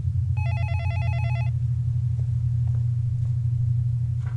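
Telephone ringing with a rapid electronic trill: one ring lasting about a second, the next starting at the very end, over a steady low hum.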